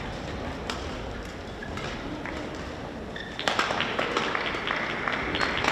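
Indoor sports-hall ambience with scattered sharp clicks and knocks, becoming a busy run of quick ticks about three and a half seconds in.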